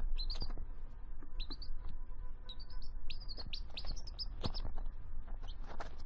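Baby chick peeping: a string of short, high cheeps, some in quick runs, with brief pauses between.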